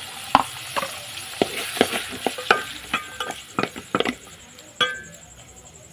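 A spoon knocking against a metal cooking pot as food is stirred, about nine irregular clinks, some with a short ring, over a steady sizzling hiss.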